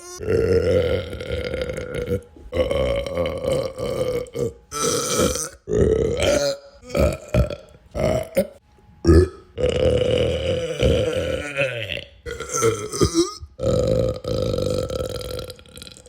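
A person belching over and over: a string of burps, some long and drawn out, others short and coming in quick succession.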